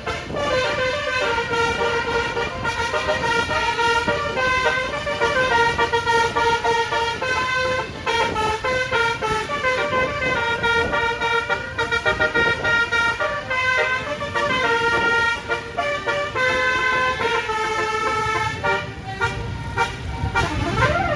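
Telolet multi-tone musical air horn on a Putera Utama Rahma bus playing a long melody of quick stepped notes over engine and road noise, with a rising glide near the end.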